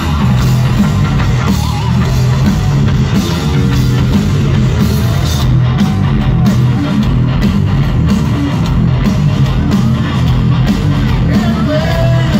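Live rock band playing loud, with a singer's voice over distorted electric guitar, bass and drums.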